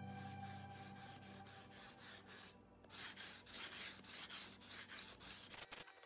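Sandpaper on a curved hand-sanding pad rubbed back and forth over the edge of a cured epoxy-resin and wood panel, in quick strokes of about three a second. The strokes are faint at first and louder from about halfway.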